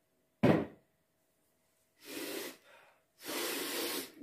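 A man gasping and breathing hard. A sudden sharp sound comes about half a second in, then a short breath at about two seconds and a longer, louder breath from about three seconds in.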